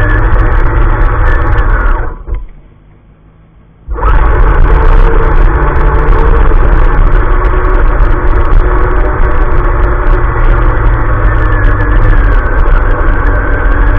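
Onboard sound of a radio-controlled crawler truck's electric motor and geartrain whining as it drives over gravel, the pitch drifting up and down with speed. About two seconds in it falls away almost to nothing and returns abruptly about two seconds later.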